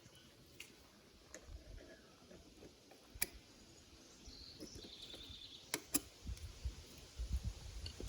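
Scattered sharp metal clicks of needle-nose pliers and cotter pins being worked out of a dirt bike's rear brake caliper pin, with a bird chirping briefly about halfway through.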